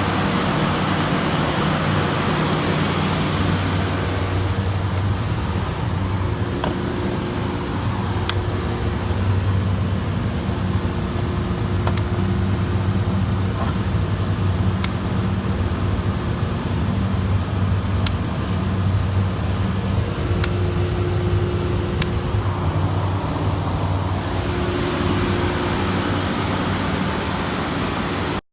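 Steady low machinery drone with a deep hum that swells and eases, and a few faint sharp ticks scattered through it.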